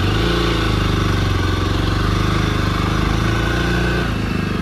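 A Jawa 42 Bobber motorcycle's single-cylinder engine running steadily while the bike is ridden, easing off slightly about four seconds in.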